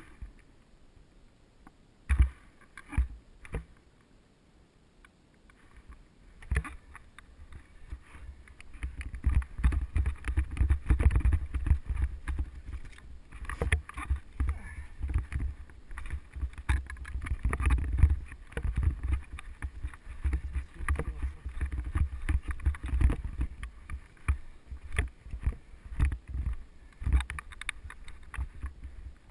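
Mountain bike ridden over a dirt forest singletrack, heard from a helmet camera: a rumble of wind on the microphone with frequent knocks and rattles as the bike goes over bumps. Quiet for the first few seconds apart from two sharp knocks, then busiest midway.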